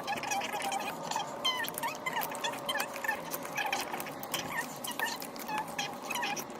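Hands squishing and kneading a large mass of slime: continuous squelching crackles, with many tiny pops and short squeaky blips as air pockets burst.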